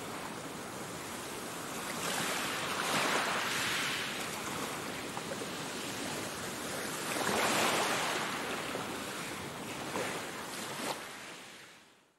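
Small waves washing onto a shallow sandy beach, the surf swelling twice and then fading out near the end.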